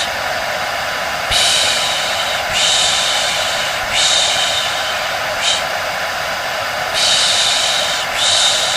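Hair dryer running steadily with a faint hum, under a rhythmic 'shhh' shushing sound that comes in about every one and a half seconds, six times here: a soothing sound track for settling a baby to sleep.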